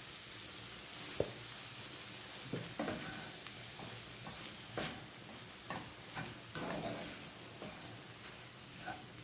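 Minced meat and tomatoes frying with a steady sizzle in a pan while a spatula stirs and scrapes through them, making a string of short scrapes and knocks against the pan.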